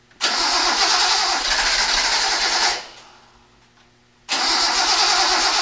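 Datsun 260Z's straight-six being cranked by its starter motor in two bursts of about two and a half seconds each, with a short pause between, without catching. The engine is fuel-starved despite priming of the carbs, and the battery is starting to die.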